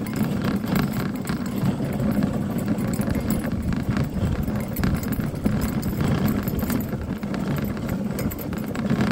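Dog sled moving along a packed snow trail behind a running team of four dogs: a steady rushing scrape of the runners over snow, with many small knocks and footfalls.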